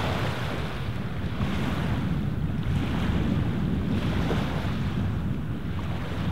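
Small waves lapping and washing onto a pebble lake shore, swelling and falling back every second or two, with wind rumbling on the microphone.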